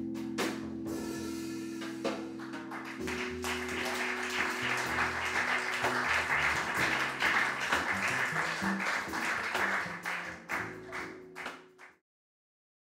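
A jazz trio of stage keyboard, double bass and drums ends on held notes, then audience applause swells up and dies away. The sound cuts off abruptly near the end.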